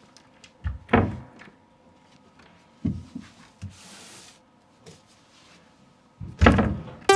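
Wooden locker door being opened and shut: a knock as it opens about a second in, a short scrape as a book is pulled off the shelf, then the door bangs shut near the end, the loudest sound.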